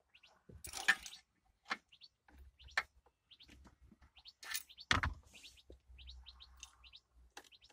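Sharp metal clicks and a key ring jingling as the ignition lock cylinder of a 1996 Dodge Caravan is worked with its key and a screwdriver. The loudest clicks come about five seconds in. Small birds chirp in quick runs in the background.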